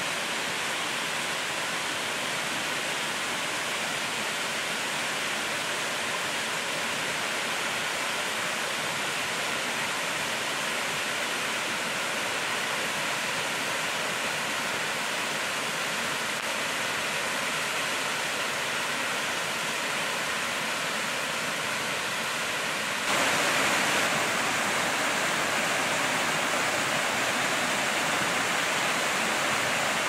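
Waterfall cascading down a rocky slope: a steady rush of falling water, which turns a little louder and brighter about three-quarters of the way through.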